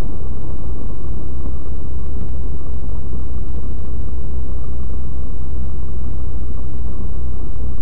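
Steady low rumble of a car driving, road and engine noise picked up by a dashboard camera inside the cabin, loud and unvarying.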